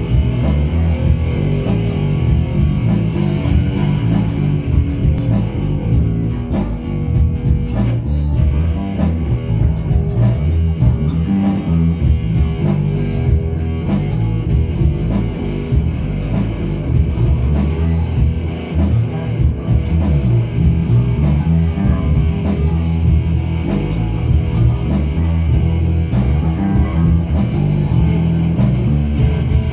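Two amplified electric guitars played together in a loud rock jam, a continuous riff with a heavy low end.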